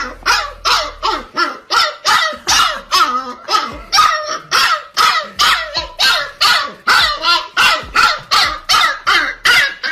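A dog barking rapidly and without a break, about three barks a second.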